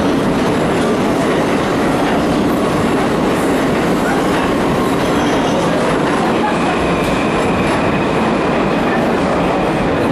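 New York City subway train running through an underground station, a steady loud rumble of steel wheels on rail. A faint high wheel squeal joins in about two-thirds of the way through.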